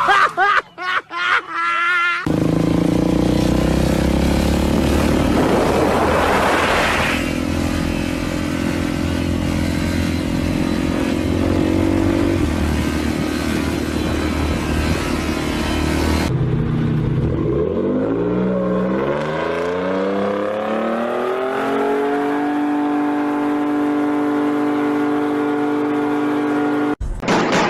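Vehicle engines running hard. First a sport motorcycle engine holds steady high revs, swelling briefly once. Then, after a cut, a pickup truck's engine revs up steeply from low and holds high revs during a tyre burnout.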